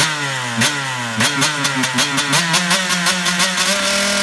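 KTM 125 two-stroke motocross bike with an FMF exhaust, its engine revving hard in repeated falling sweeps, then a quick run of sharp pops about four or five a second, settling to a steadier note near the end.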